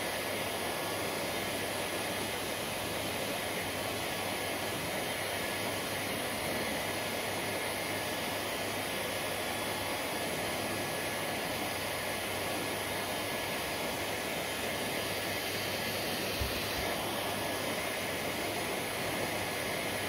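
Handheld hair dryer running steadily on hair, a constant rush of blown air with a faint high motor whine.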